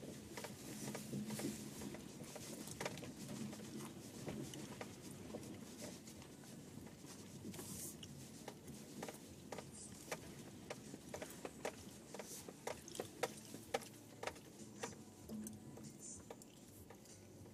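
A 2010 Subaru Forester rolling slowly over a snowy farm field, heard from inside the cabin: a low steady rumble, with scattered sharp clicks and crackles that come thicker in the second half.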